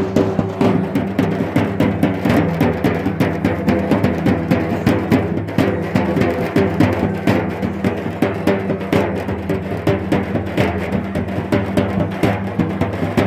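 Drums beaten fast and without a break, many strokes a second, over the noise of a large crowd.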